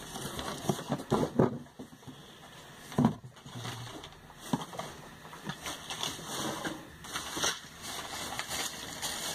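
Scattered light knocks and rustling from objects being handled and moved, with a few sharper knocks in the first few seconds.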